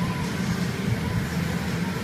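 Steady low rumble of factory equipment, such as burners and extraction, running continuously, with a faint thin whine above it.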